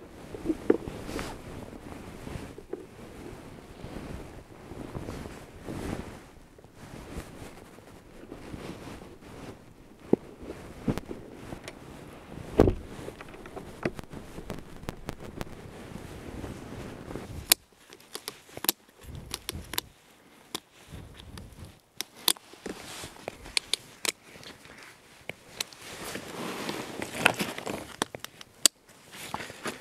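Rustling and knocking of gear being handled and packed into a plastic pulk sled, with one heavier thump about halfway through. Later come scattered sharp clicks and snaps as snowshoe bindings are strapped on.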